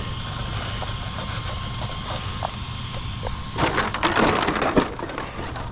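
Loud crunching and crackling, as of loose dirt and grit being crushed, starting a little past halfway in over a steady low rumble.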